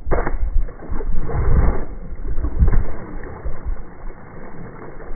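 Water splashing and sloshing at the surface just below a dock edge, with low wind rumble on the microphone.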